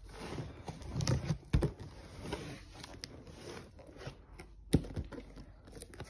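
Hands handling and rubbing a cardboard box: scraping and rustling against the cardboard, with a few sharp knocks, the loudest late in the clip.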